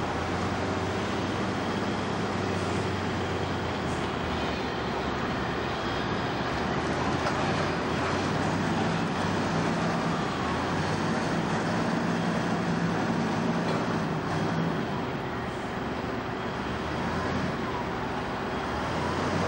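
Heavy diesel engines running steadily: a timber truck idling while a wheel loader drives up alongside it, its engine note a little stronger through the middle.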